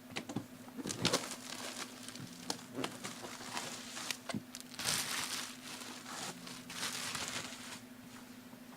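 A box and its packaging being opened and handled: irregular rustling, crinkling and tearing with small knocks, busiest in the middle of the stretch and dying away near the end. A faint steady electrical hum runs underneath.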